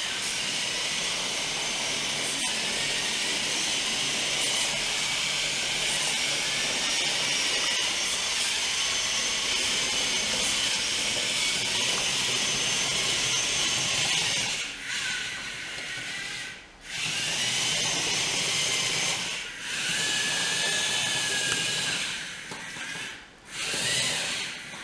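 DC gear motors and plastic tracks of a DFRobot Devastator tracked robot whirring with a high whine as it drives itself across a hardwood floor to its charger. The whir is steady for a while, then stops and restarts several times in short runs as the robot manoeuvres.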